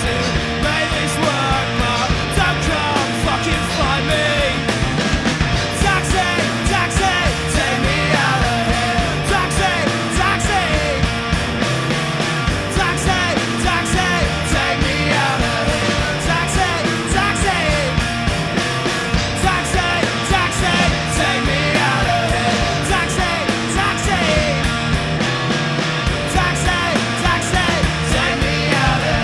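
Pop-punk band recording playing at full volume: a dense, steady mix of drums and electric guitars.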